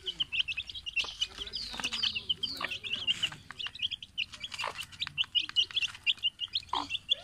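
Chicks peeping in a rapid, continuous run of short high chirps as they feed, with scattered sharp taps and a few lower calls mixed in.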